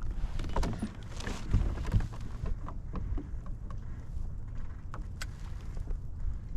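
Fishing gear being handled: scattered light knocks and clicks over a steady low rumble, busiest about half a second to two seconds in.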